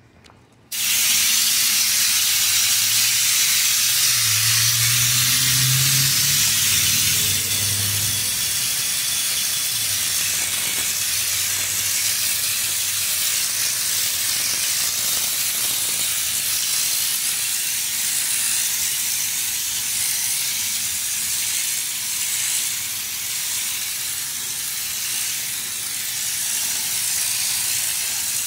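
Compressed-air bedliner spray gun, the Raptor liner bottle screwed beneath it, hissing steadily as it sprays liner. The hiss starts abruptly about a second in as the trigger is pulled.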